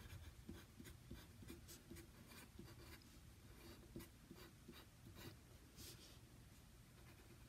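Faint scratching of a pencil writing on paper, in many short strokes as the letters of a word are formed.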